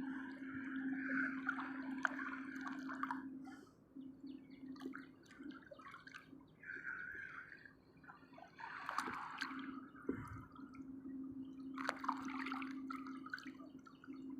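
Sea water sloshing and splashing in irregular gushes, with small drips and clicks. A steady low hum runs underneath.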